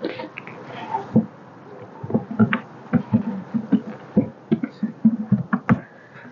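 Telescoping hive outer cover, sheet metal over a wooden rim, being set down on a wooden hive box and shifted into place by hand: a rapid run of dull wooden knocks and scrapes.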